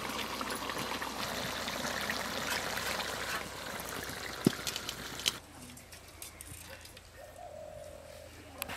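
Fish curry simmering and bubbling in a kadai over a wood fire, a steady hiss, with one sharp knock about four and a half seconds in. Past the halfway point it gives way suddenly to quieter background with a few light clicks.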